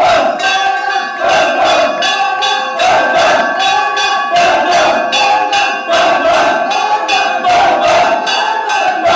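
A metal bell struck rapidly, several strikes a second, each ringing on. Underneath, a packed crowd of men chants and shouts.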